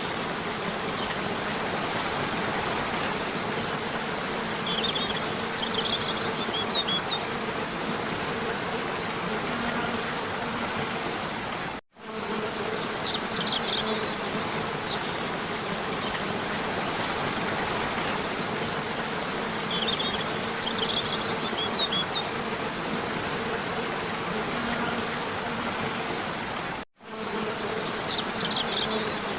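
A steady buzzing drone with a faint low hum in it. Small clusters of short, high chirps come every seven or eight seconds, and the whole sound cuts out for an instant twice.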